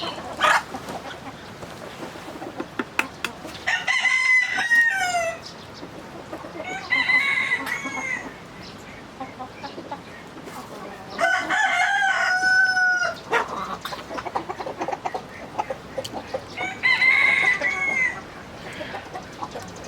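Roosters crowing four times, each crow about one and a half to two seconds long, with chickens clucking between the crows.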